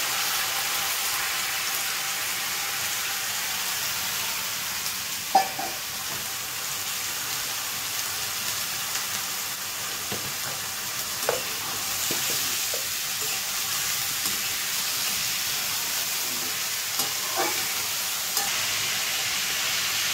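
Diced potatoes and green long bean seeds sizzling steadily in hot oil in a metal kadhai. They are stirred now and then, and a utensil knocks sharply against the pan a few times, loudest about five seconds in.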